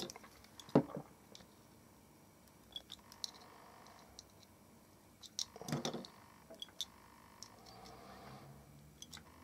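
Quiet handling of needle-nose pliers and a metal alligator clip: a sharp click about a second in, scattered small metal clicks, and one brief louder rustle about six seconds in.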